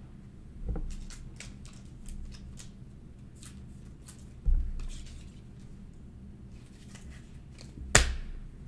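Trading cards being handled and slid into a thin plastic penny sleeve: soft plastic scuffs and light ticks, with dull bumps about a second and four and a half seconds in and a sharp click near the end.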